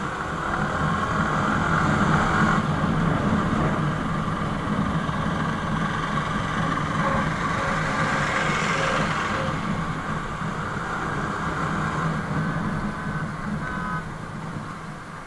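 Yamaha motorcycle engine running steadily at road speed, with wind and road noise and surrounding traffic; a louder rush of noise swells and fades about nine seconds in, and a few short high beeps come near the end.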